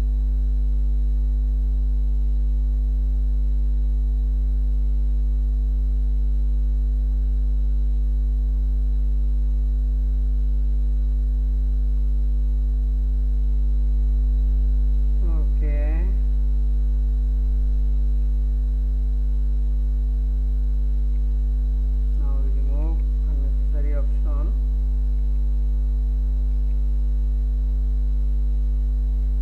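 Steady electrical mains hum: a low buzz with a ladder of overtones, picked up by the recording.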